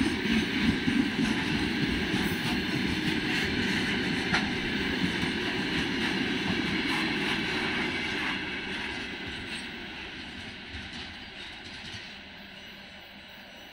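Loaded freight wagons of a coal train rolling past on the rails: a steady rumble and clatter of wheels with scattered sharp clicks. It fades steadily from about eight seconds in, as the last wagon passes and the train draws away.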